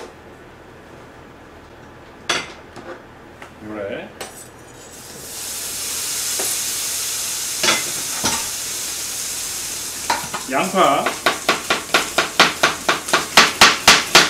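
Diced Spam sizzling as it fries in a hot frying pan, the hiss coming up about five seconds in and then holding steady. From about ten seconds in, a chef's knife chops an onion on a cutting board in quick regular strokes, about four or five a second, over the sizzle.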